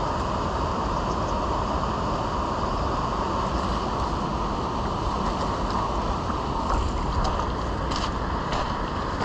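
Steady rushing of river water pouring over a low concrete weir, with wind buffeting the microphone.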